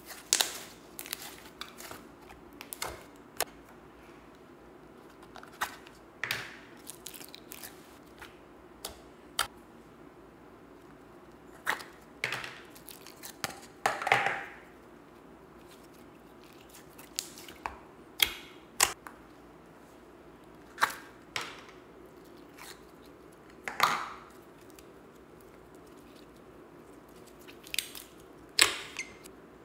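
Slime being squished and pulled by hand: irregular wet clicks and pops, some in quick clusters, over a faint steady hum.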